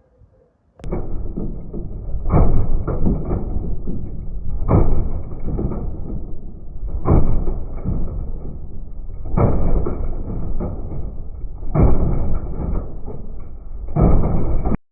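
Whirlpool washing machine with a 6-litre water bottle in its drum, the heavy bottle banging around as the drum turns. A loud, steady rumble with heavy thumps about every two and a half seconds and smaller knocks between them, cutting off suddenly near the end.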